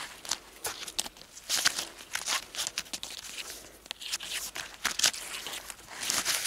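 Waterproof groundsheet fabric and paracord rustling and crinkling in the hands as the whipping on the hammock's gathered end is unwound: a string of short, irregular rustles.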